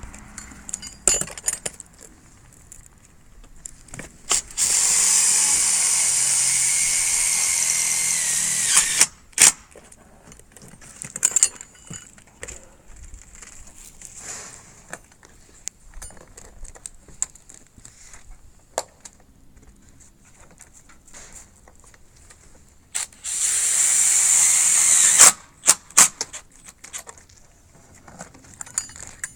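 A handheld power tool runs twice, once for about four seconds and later for about two seconds, its high whine dropping in pitch as it winds down each time. Scattered knocks and clicks of roofing work come in between.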